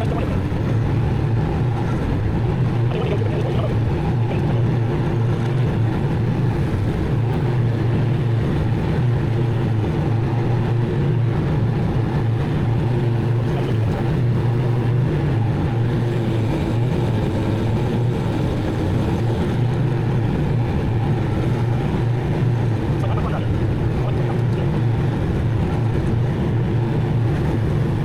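Zero-turn mower engine running steadily at a constant pitch while mowing.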